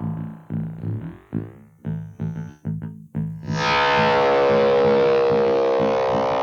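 Experimental effects sound from a circuit-bent Waldman flanger pedal: a string of short, choppy stabs with sweeping flanged streaks over a low repeating pulse. About three and a half seconds in, a loud sustained flanged noise drone swells up and holds.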